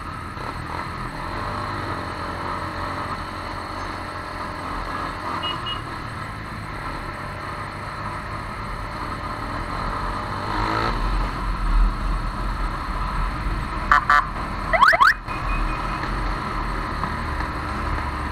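Motorcycle riding at low town speed: engine running, with steady wind and road noise on the bike-mounted camera. About three-quarters of the way through come two brief loud bursts of high, quickly rising tones.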